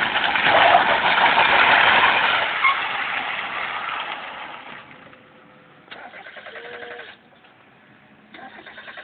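Ford Laser car sliding on McDonald's trays: a loud rushing, scraping run of engine and trays for about four seconds, fading out, then two short spells of fast, even engine pulsing.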